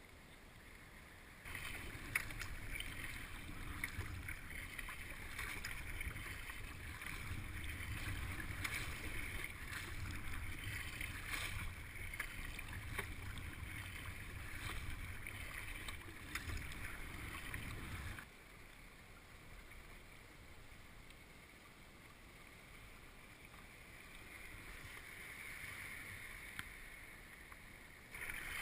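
Water splashing and lapping against a kayak as it is paddled, with many small splashes and a low rumble. The sound jumps louder about a second and a half in and drops abruptly to a quieter wash about two-thirds of the way through.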